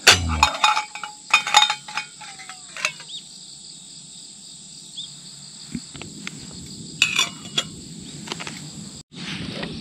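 Metal camp cookware and utensils clinking: a cluster of clinks at the start and another about seven seconds in. Under them runs a steady high chirring of insects.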